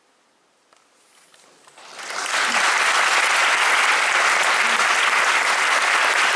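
A hush after the choir's last note, a few scattered claps, then about two seconds in the audience breaks into full, steady applause.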